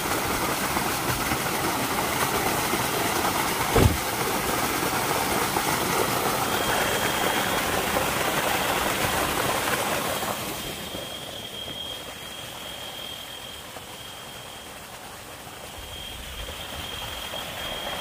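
Water gushing from a solar tubewell's discharge pipe and splashing into a brick tank, a steady rushing noise, with a single knock about four seconds in. The rush becomes much quieter about ten seconds in, while a thin steady high tone continues.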